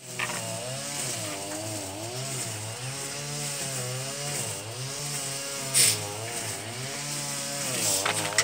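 Honeybees buzzing around a hive: a steady drone that wavers slowly up and down in pitch, with a short sharp tap about six seconds in.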